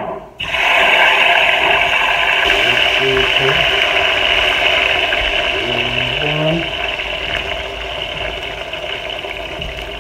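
Chopped onion, tomato, peppers, scallion and thyme hitting hot oil in a cooking pot, starting to sizzle loudly all at once about half a second in and then easing off slowly as they fry.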